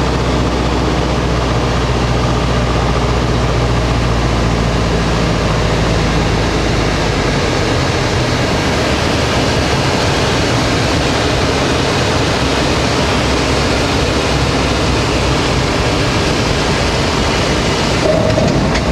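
Piper Super Cub's engine and propeller with rushing wind, heard inside the cockpit on a landing approach. About seven seconds in the engine's low drone drops away as the power is pulled back for landing, leaving mostly steady wind noise, and near the end the sound turns rougher as the wheels run on the dirt strip.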